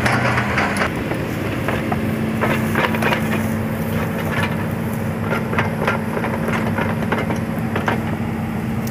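Hitachi 200-class excavator's diesel engine running steadily, its note shifting about a second in, with irregular clanks and cracks from the steel crawler track and undercarriage as the track chain is being fitted.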